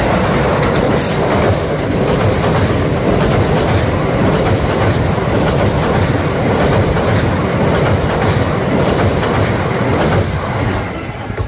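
Kintetsu electric train passing close by, its wheels clacking over the rail joints, fading in the last second.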